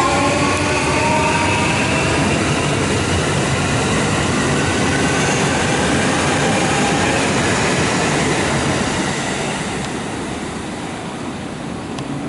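JR Central 315 series electric train pulling away: the whine of its inverter-driven traction motors rises in pitch as it accelerates during the first second or so, over a steady rumble of wheels on rail that fades from about eight seconds in as the train moves off.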